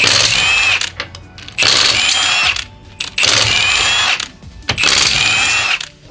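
Milwaukee cordless impact wrench hammering loose a car's wheel bolts, in four bursts of about a second each with short pauses as it moves from bolt to bolt. The motor's whine rises and falls within each burst.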